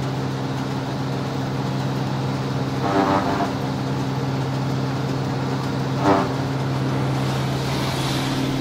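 Claas forage harvester running steadily with a low drone while straw is fed into its pickup. A short hoot-like tone sounds twice, about three seconds apart.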